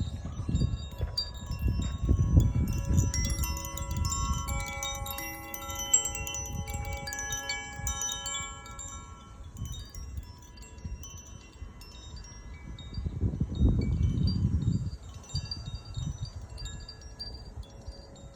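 Zaphir Sunray chime ringing, its tuned notes overlapping and sustaining, busiest in the first half and thinning out later. Underneath is a low rumbling noise that swells about two seconds in and again, louder, near fourteen seconds.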